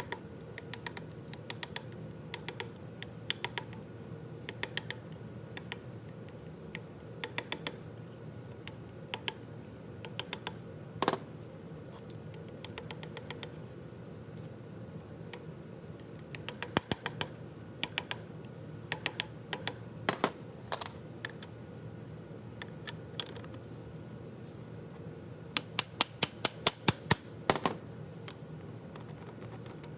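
Sharp metal clicks and light taps as the steel balls, cage and race of a CV joint are worked back into place, scattered irregularly. Near the end comes a quick run of about a dozen louder taps.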